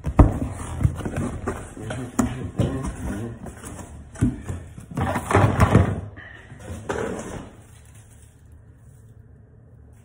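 Cardboard shipping box being opened and unpacked by hand: repeated knocks and scrapes of cardboard, with a louder burst of rustling about five seconds in, then it goes much quieter.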